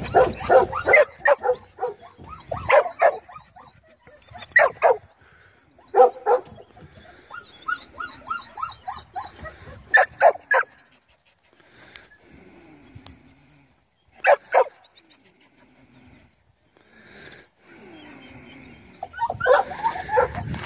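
A dog barking and whining in repeated short bursts of a few barks each, with quieter gaps between.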